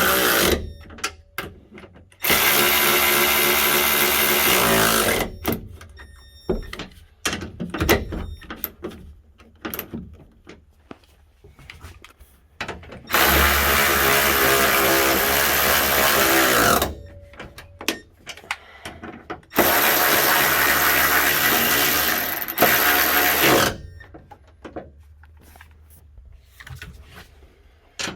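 Cordless power driver run in three bursts of three to four seconds each, spinning fasteners in or out, with scattered clicks and knocks of parts being handled between the bursts.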